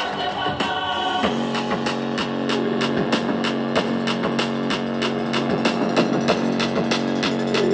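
Music playing through a Sensport Move Mini speaker: a track with a steady beat of about three strokes a second, which changes about a second in as held notes and a bass line come in.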